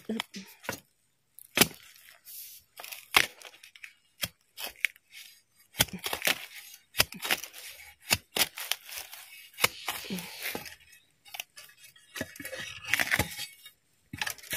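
Long-handled metal digging spade jabbed again and again into the base of a bamboo shoot to cut it free: irregular sharp cracks, chops and crunches, some with a brief scrape.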